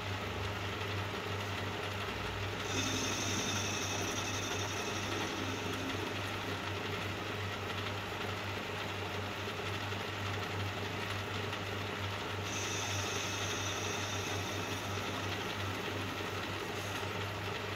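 Old belt-driven metal lathe running with a steady low hum while the tool takes a light facing cut off the end of a steel axle blank. A thin high whine from the cut comes in twice, from about three to five seconds and again from about twelve to sixteen seconds. The steel is cutting smoothly, without chatter or groaning.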